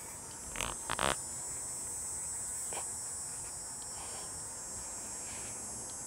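Steady, high-pitched insect chorus, with two brief bumps about a second in.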